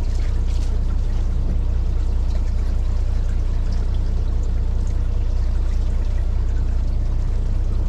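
A fishing boat's engine running steadily with a low hum, and water splashing and trickling against the hull.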